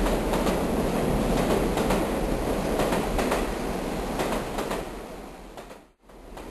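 Steady rumbling, rushing noise with faint irregular clicks. It fades out to silence about six seconds in, then starts again.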